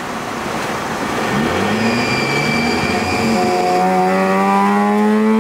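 Carbureted Mazda FB RX-7 rotary engine pulling hard in gear, heard from inside the cabin, its pitch climbing steadily as it revs up. A thin, steady high tone sits over it for about two seconds in the middle. The sound drops away suddenly at the end.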